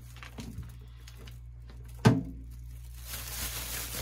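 Thin plastic bag crinkling as it is handled with raw chicken pieces inside, with one sharp knock about two seconds in.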